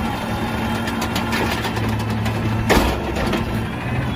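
A small motor running steadily with a low hum and hiss, with a few brief knocks, one louder near the three-quarter mark.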